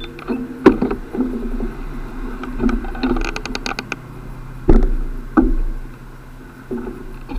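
Riding noise from a bicycle on the move: a steady rumble with sharp knocks and rattles now and then. A short run of fast, even ticking comes about three seconds in.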